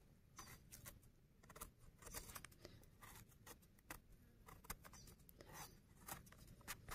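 Faint, irregular scraping and cutting sounds as freshly picked porcini mushrooms are cleaned by hand; the mushrooms are firm and crisp.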